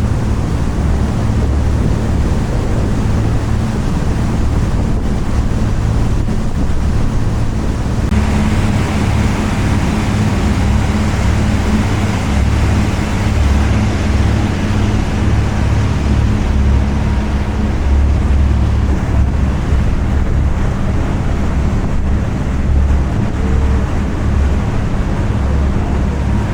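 A boat's engine running steadily under way, a low hum beneath a thick rush of wind on the microphone and passing water. The rushing noise grows louder about eight seconds in.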